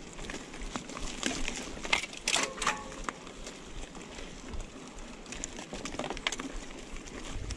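Mountain bike moving over a forest dirt trail: irregular clicks and rattles, with a brief louder cluster about two and a half seconds in.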